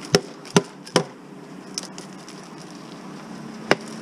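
Sharp knocks: three in quick succession near the start and one more near the end, over a faint steady hum.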